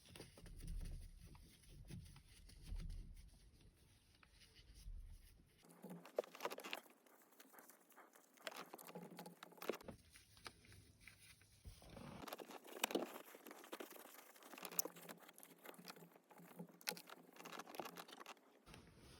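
Faint, irregular scratchy rubbing with a few small clicks: the sticky soft-touch coating being scrubbed off plastic steering-wheel buttons.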